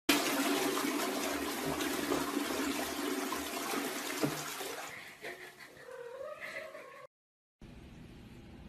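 Toilet flushing: water rushing loudly into the bowl for about five seconds, then fading, with a single knock about four seconds in. As the flush dies away, a cat gives a drawn-out, wavering meow.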